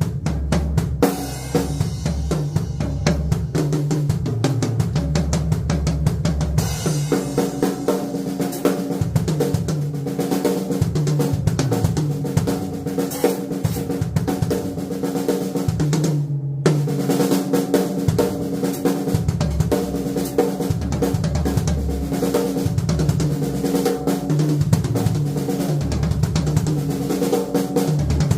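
Odery acoustic drum kit played, with fast snare and bass drum patterns, rolls and rimshots. The cymbals and snare cut out for a moment about two-thirds of the way through, then the playing picks up again.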